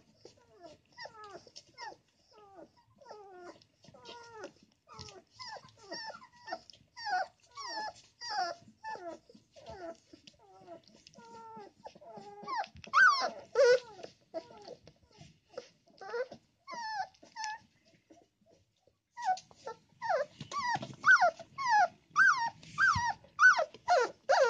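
A young golden retriever puppy whining over and over, in short cries that fall in pitch, about two or three a second. The cries break off briefly past the middle and come back louder near the end. The puppy is upset at being crowded into its corner by its mother lying on it.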